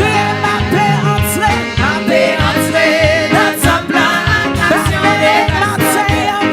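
Live gospel praise music from a church band: a steady drum beat with cymbal hits under a wavering sung or played melody.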